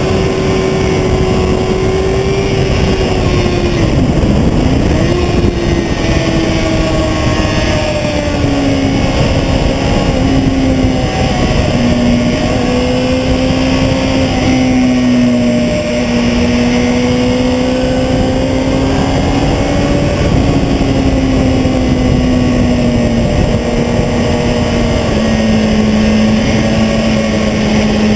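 Sport motorcycle engine running hard at high revs under heavy wind rush. Its pitch dips sharply and recovers about four seconds in, then settles lower and runs on steadily.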